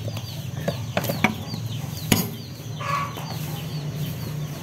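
Lemongrass stalks being pounded: a few sharp, irregular knocks, the loudest about two seconds in. A bird's high, falling chirps repeat several times a second in the background.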